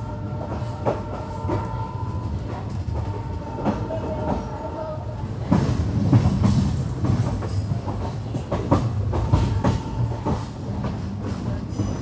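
Passenger train running, a steady low rumble with irregular clacks of the wheels over rail joints. A faint steady whine runs through the first half, and the rumble grows louder from about halfway.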